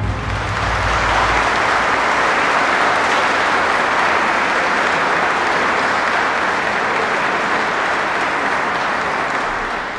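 Audience applauding steadily after a wind band's final chord. The band's last low notes die away in the first second and a half.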